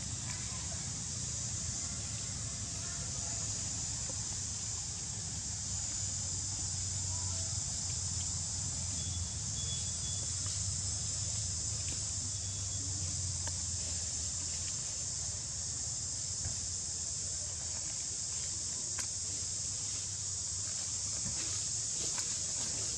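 Steady, high-pitched drone of insects, unbroken throughout, with a low steady rumble underneath and a few faint clicks.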